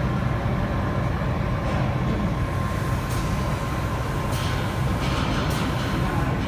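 Vertical form-fill-seal packing machine running: a steady mechanical hum with a thin steady whine over it, and a few faint clicks.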